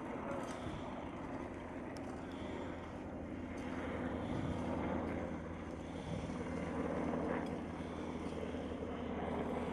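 A vehicle engine running steadily: a low, even rumble under a continuous noisy hiss.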